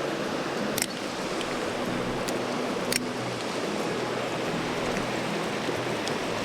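Mountain stream water rushing steadily over rocks, with two sharp clicks, one about a second in and one about three seconds in.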